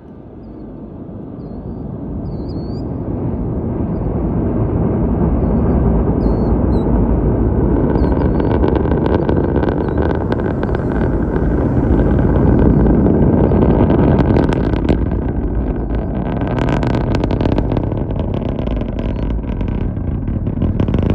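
The roar of a SpaceX Falcon 9's nine Merlin first-stage engines reaching a listener about four miles from the pad. A deep rumble swells over the first several seconds. From about eight seconds in, loud, sharp crackling rides over it.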